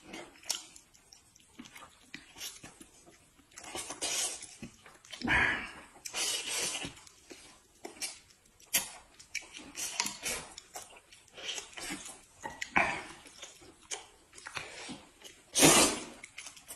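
Two people eating at close range: chewing and slurping with small clicks of chopsticks, and a loud slurp of noodles near the end.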